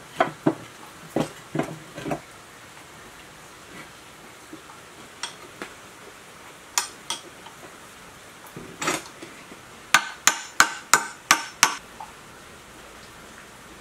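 Metal pump housing parts knocking and clinking as they are stacked and set in place during reassembly of an electric sewage pump. The knocks come in scattered bunches, ending about ten seconds in with a quick run of seven sharp taps.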